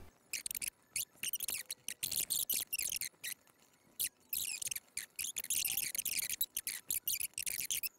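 Typing on a computer keyboard, in quick irregular bursts of key clicks with a short pause about three seconds in.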